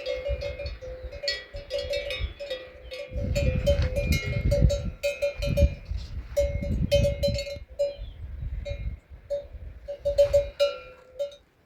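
Metal livestock bell clanking irregularly several times a second, as on a moving animal, stopping just before the end. A low rumble runs underneath through the middle.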